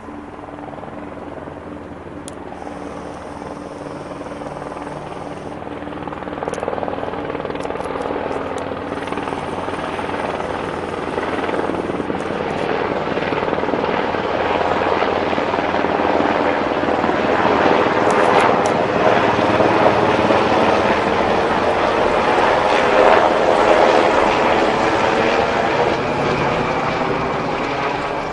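Military helicopter in flight, its rotor and engine noise growing steadily louder as it approaches.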